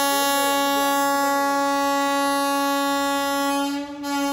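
Train horn of the Vande Bharat Express sounding one long, steady blast. It breaks off near the end and is followed by the start of a short second blast, signalling the train's departure from the platform.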